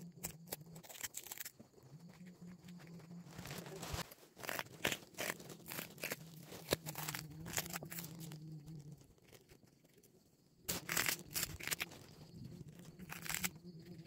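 Ripe bitter melon being torn open and its seeds pulled out by hand, giving irregular crackling and tearing sounds, with a short pause about nine seconds in before a dense run of crackles.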